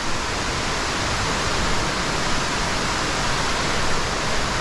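Steady rushing of an underground waterfall inside a large cave.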